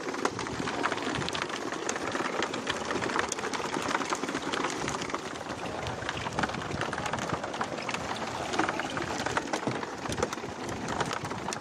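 Many freshly landed skipjack tuna thrashing on a bamboo platform and in the net, a dense, steady patter of small wet slaps and knocks.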